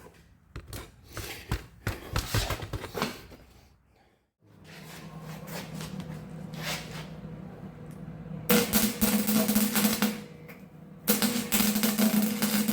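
Wire-feed welder laying beads of fill metal: a few clicks and knocks, then a steady hum, then two runs of dense arc crackle, the second starting about a second after the first stops.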